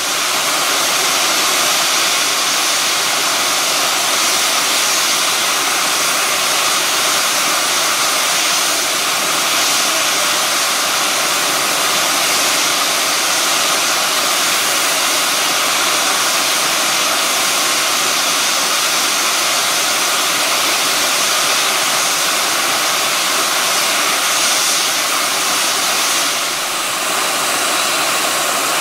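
Somerset & Dorset Joint Railway 7F 2-8-0 steam locomotive No. 53808 standing and blowing off steam: a loud, steady hiss.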